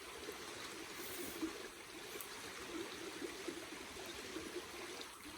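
A small mountain brook running over stones: a steady, faint babbling and trickling of water.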